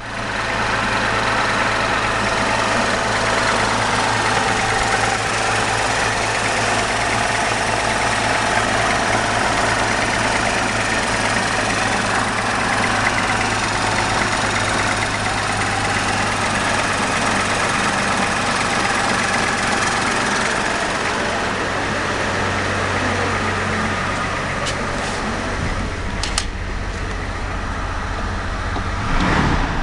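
Vehicle engine idling steadily at about 1,000 rpm. A few sharp clicks come near the end.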